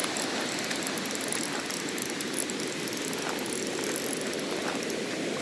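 Ocean surf washing up a sandy beach: a steady rush of breaking waves and foam.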